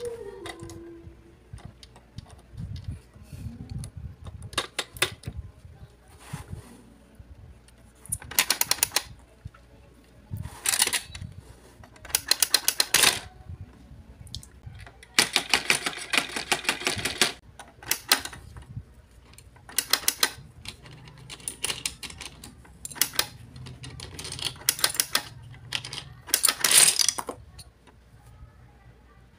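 Hard plastic pieces of a Greedy Granny game clicking and clattering as they are handled, snapped on and dropped into the toy's plastic tray: quick bursts of clicks every second or two, with a longer rattle about fifteen seconds in.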